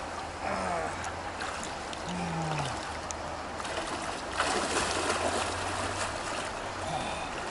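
Shallow, stony mountain river running steadily, with splashing from someone wading through the water.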